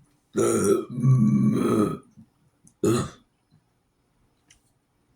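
A man burping loudly: one long, drawn-out burp, then a short one about a second later.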